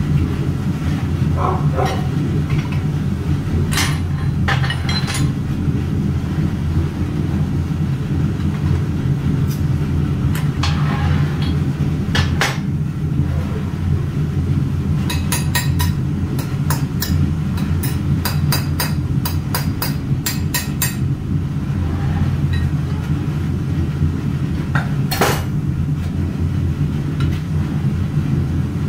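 Steady low drone of foundry equipment, with scattered metallic clinks and knocks of tools on the metal permanent mold used to cast aluminium motorcycle levers. About halfway through comes a quick run of taps lasting several seconds.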